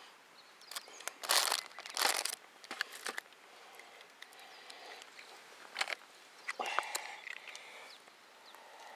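Irregular rustling and crinkling handling noises with scattered clicks. The two loudest rustles come about a second and a half and two seconds in.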